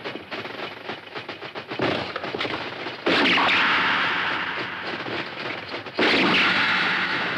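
Sci-fi film sound effects: rapid clicking for about three seconds, then a ray gun firing two long, loud blasts, each starting suddenly, the first about three seconds in and the second about six seconds in.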